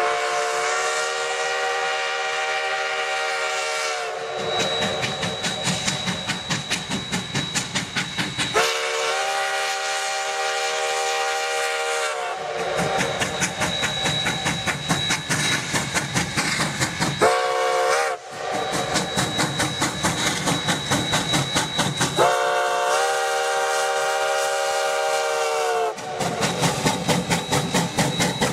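Narrow-gauge 4-6-0 steam locomotive No. 152 sounding its whistle in four blasts, long, long, short, long: the grade-crossing signal. Between the blasts its exhaust chuffs in a steady rhythm as it works past with its train.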